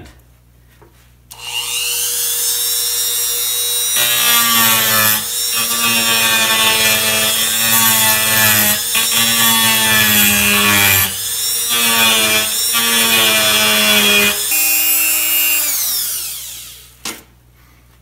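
A handheld rotary tool with an aluminium-oxide grinding stone spins up about a second in with a rising high whine. It then grinds down the skirt of a two-stroke engine's piston: a steady whine with a rasping grind, broken by a few brief lifts of the stone. Near the end the grinding stops and the tool winds down with a falling whine, followed by a click.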